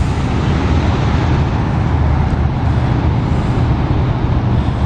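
A steady, loud low rumbling noise with no distinct events in it.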